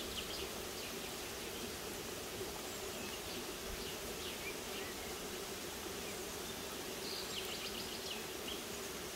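Steady buzzing of insects, with a few short clusters of high chirps: one just at the start, one about three to four seconds in, and one near the end.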